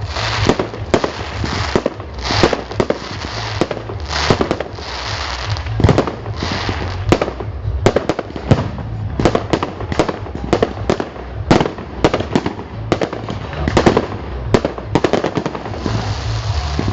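Fireworks display: a rapid, continuous barrage of bangs and crackling bursts going off one after another.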